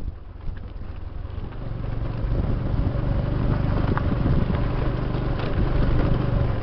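Motorcycle engine running steadily while riding, its low hum growing louder about two seconds in.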